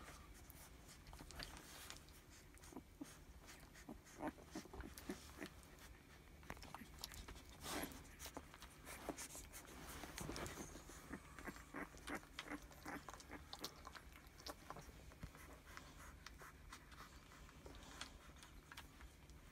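Faint rustling, scattered small clicks and mouth sounds from a litter of young puppies squirming in a heap.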